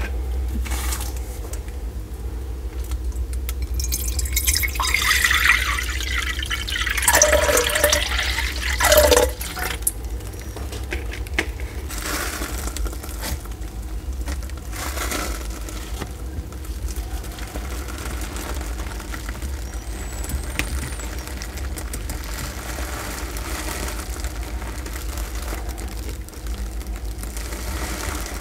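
Sulcata tortoise moving about by its water dish and over artificial turf. A louder stretch of rustling and clicking comes about four to nine seconds in, with lighter rustles and ticks afterwards, all over a steady low hum.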